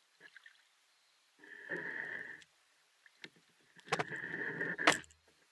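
Kayak paddle strokes in calm water: the blade dips and pulls through twice, about two and a half seconds apart, each a short splash lasting about a second, with a couple of sharp clicks around the second stroke.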